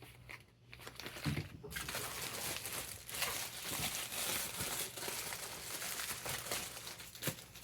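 Packaging crinkling and rustling as it is handled, starting about two seconds in and going on steadily.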